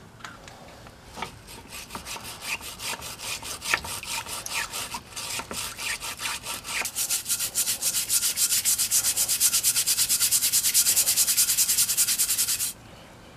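Scrubbing of softened paint-stripper residue off cast-iron stapler parts in a tub of water, as with a stiff brush. The rasping strokes are uneven and spaced out at first, then come fast and even for the last few seconds before stopping abruptly.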